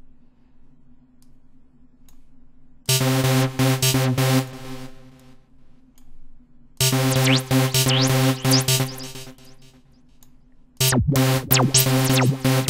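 Steinberg HALion 6 software synthesizer playing a chord patch: three pulsing chord phrases about four seconds apart, each lasting around two seconds and fading away between them.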